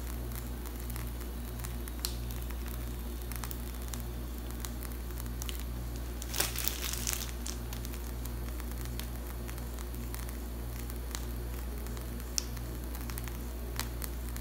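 Plastic piping bag of whipped cream crinkling faintly as it is squeezed to pipe a border, with a louder rustle about halfway through, over a steady low hum.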